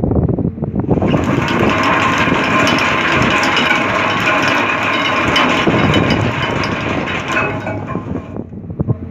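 Anchor chain running out over the gypsy of a deck anchor windlass as the anchor is let go on its handwheel brake: a loud, continuous metallic rattle that starts about a second in and cuts off sharply near the end.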